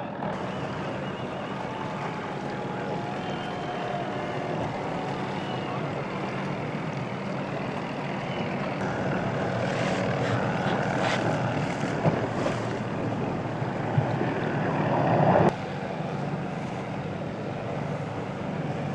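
Steady hum of a boat engine under wind and water noise, with a few sharp knocks from about ten seconds in. The noise swells for a second or two and cuts off suddenly about three-quarters of the way through.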